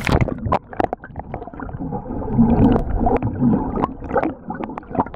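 Muffled underwater sound from a camera dunked into the sea just at the start: the wind and high end drop away, leaving gurgling water with scattered sharp clicks and knocks.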